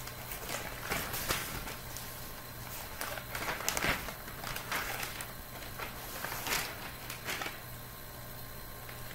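Blue tit scratching and rustling at the nest box: irregular clusters of scratchy clicks as its claws grip the wood and it shifts nest material, dying away shortly before it enters. A steady low hum runs underneath.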